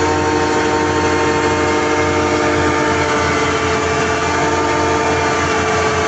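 Newly installed hydraulic pump on a Komatsu PC1250-8R excavator running under a loud, steady machinery noise, with a steady whine of several tones held at the same pitch. It is being checked for abnormal noise after installation.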